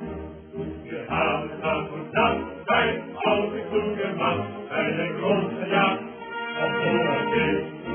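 Background music with chanted singing.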